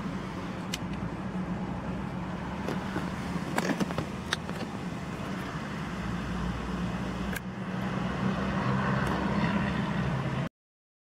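Car idling, heard from inside the cabin as a steady low hum, with a few light clicks. The sound cuts off suddenly near the end.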